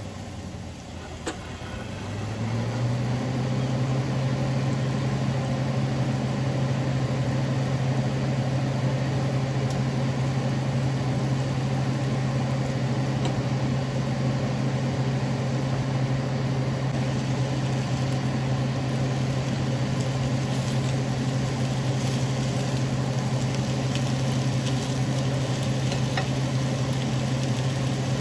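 Marinated steak strips sizzling in a cast iron grill pan, over a steady low hum that drops away at the start and comes back after about two seconds. A few light clicks of a fork against the pan as the meat is turned.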